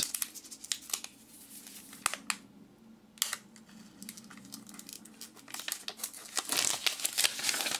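Clear protective plastic film being peeled off the back of a smartphone, crinkling in scattered crackles that grow busiest near the end.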